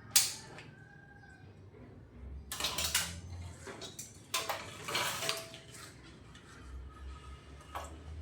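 Metal tools and parts being handled: a sharp clank just after the start, then two spells of clinking and rattling a few seconds in, and a few light ticks near the end.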